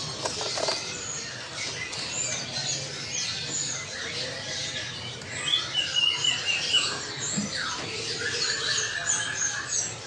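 Many small caged birds chirping and twittering at once: a dense, continuous chorus of short, high calls and trills.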